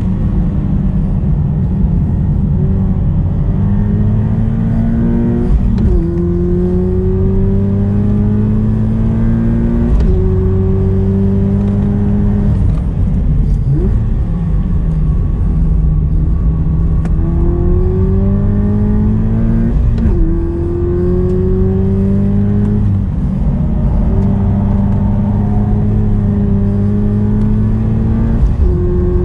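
Subaru BRZ's 2.0-litre flat-four engine at hard throttle on a race circuit, heard from inside the car through an aftermarket PowerCraft single-exit muffler. The revs climb for a few seconds at a time, then jump or drop sharply at each gear change and braking zone, over a constant rush of wind and tyre noise.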